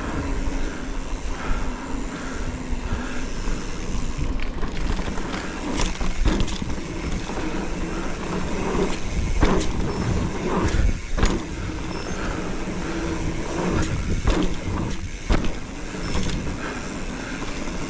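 Hardtail mountain bike riding a rough trail section: a steady low rumble of tyres on dirt, with the frame and chain rattling and giving sharp knocks over bumps.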